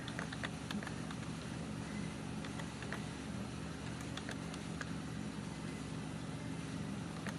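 Computer keyboard keys clicking at irregular intervals as someone types, over a steady low hum.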